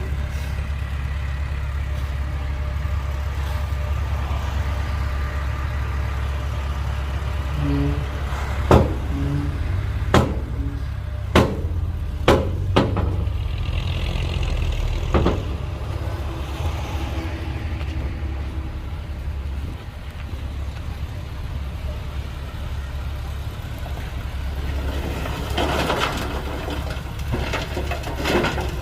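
Heavy diesel machinery running steadily with a low rumble, broken by about six sharp bangs spread over several seconds near the middle.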